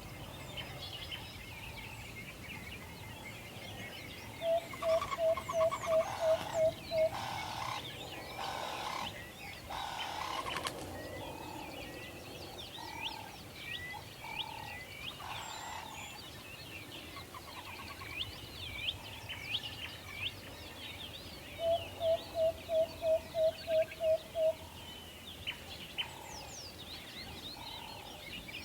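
Forest ambience full of small birds chirping and trilling. Twice, a bird gives a run of about eight evenly repeated low hooting notes, about three a second, the loudest sound here, and there is a few seconds of noisy rustle between them.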